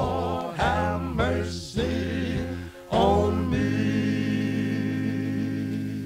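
Male gospel quartet singing the closing phrases of a song, played from a 45 rpm record; the voices settle onto one long held chord about halfway through.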